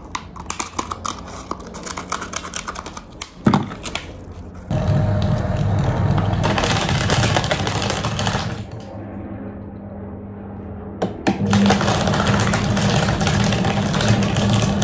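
Plastic drink bottles crackling and crinkling as they are handled, with a sharp knock. Then the homemade plastic shredder's electric hoist motor starts with a loud steady hum and the cutters crunch on the plastic. The drive drops lower for a couple of seconds and then runs loud again.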